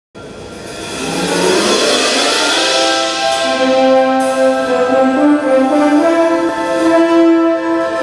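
Concert wind band playing: the music swells up over the first two seconds, then settles into held chords under a slowly moving melody.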